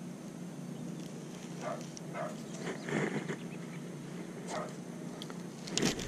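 A few short, faint animal calls over a steady background hum, with a sharp click near the end.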